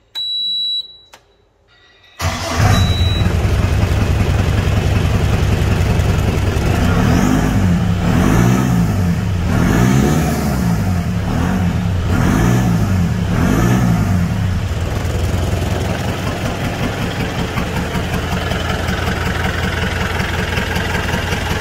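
Modified landi jeep's engine exhausting through a fitted New Holland tractor silencer. It is started and catches about two seconds in, is revved several times through the middle, then settles to a steady idle with a heavy exhaust note.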